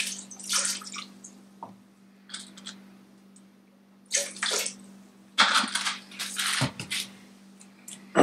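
Soy sauce pouring out of a bottle into a blender jar in irregular glugging spurts, with a knock near the end as the bottle is set down on the counter.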